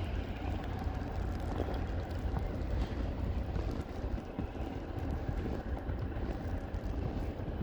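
Steady low rumble of wind buffeting the microphone during a snowstorm.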